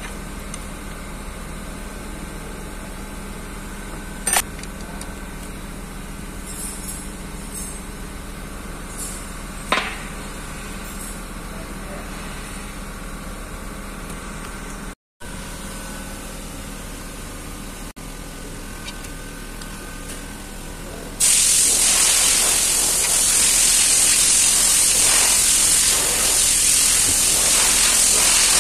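Steady shop hum with a couple of sharp clicks from the wrench on the oil pan drain plug, then a loud, steady hiss that starts about three quarters of the way through and keeps going.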